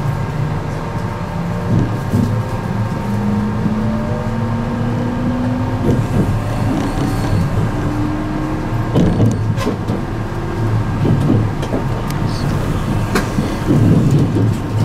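E653-series limited-express electric train heard from inside the car as it pulls away from a station: the traction motors' whine climbs in steps as the train gathers speed, over steady running noise with a few knocks from the wheels on the track.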